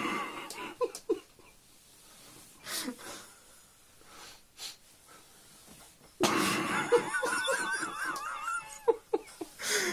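A man's wheezing, breathless laughter: short gasps at first, then a long, wavering wheezing fit from about six seconds in, breaking into short gasps again near the end.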